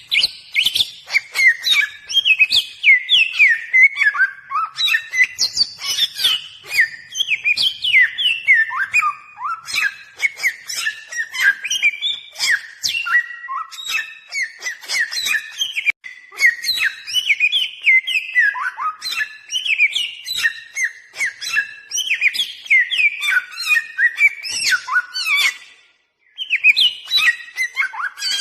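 Bare-throated whistler (samyong) singing a continuous run of quick, varied whistled notes that slide up and down in pitch, with one short break near the end.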